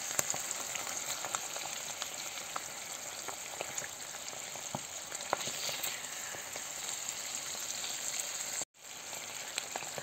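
Sliced butter mushrooms frying in sunflower oil in a pan: a steady sizzle with scattered small pops, while a silicone spatula stirs them. The sound breaks off for an instant near the end.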